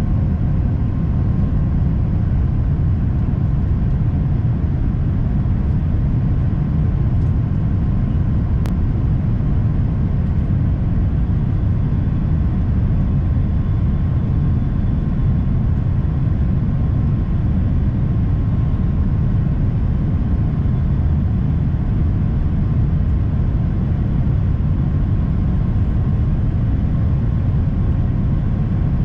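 Steady low rumble of jet engines and airflow heard inside the cabin of an Airbus A350-1000 with Rolls-Royce Trent XWB engines, on approach to land. Faint steady tones ride above the rumble.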